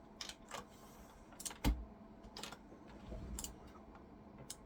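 Plastic keycaps being pried off a Razer BlackWidow V3 mechanical keyboard by hand: scattered light clicks and snaps, with one heavier knock about a second and a half in.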